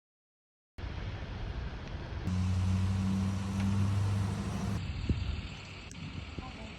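Engine running with a steady low hum, louder for about two and a half seconds in the middle, with a click after it.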